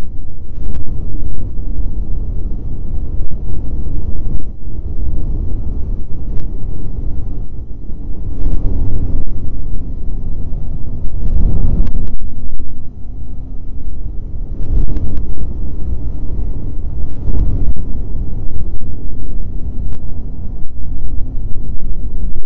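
Snowmobile engine running at trail speed, its tone rising and falling a little, under a heavy low rumble, with several short knocks.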